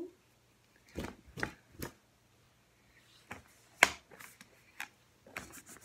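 Short scattered rustles and light knocks of handling: a small cloth being shaken out and rubbed over a plastic toy baby doll to dry it, with one sharper click a little before four seconds in.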